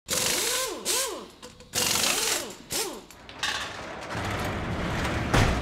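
Designed sound effect of a mechanism unlocking: several short bursts of clanking and ratcheting, with swooping tones that rise and fall, then a steady swell ending in a sharp loud hit near the end.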